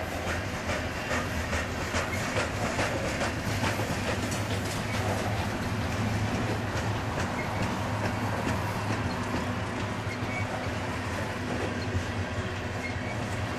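Freight train of covered grain hopper cars rolling past: a steady rumble of steel wheels on rail with clickety-clack over the rail joints, the clicks thickest in the first few seconds.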